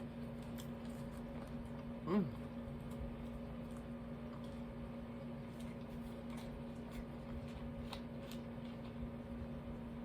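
Soft chewing and faint mouth clicks while eating a sandwich, over a steady low hum. About two seconds in, a short "mm" falls in pitch.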